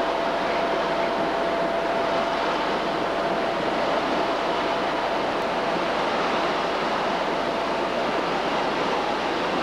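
Class 37 diesel locomotive engine running steadily at standstill, an even engine noise with a constant thin whine.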